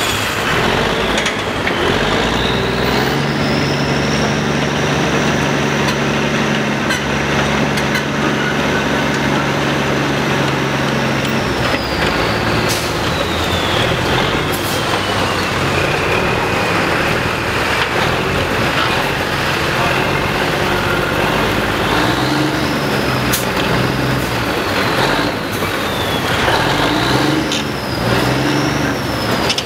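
Diesel engine of a Manitowoc lattice-boom crawler crane running, a steady low drone under a high whine that rises and falls. The engine note changes pitch several times near the end.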